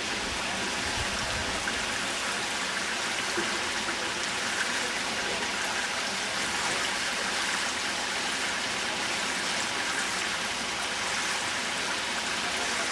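Steady rushing, trickling water from a swimming pool, an even hiss that does not change.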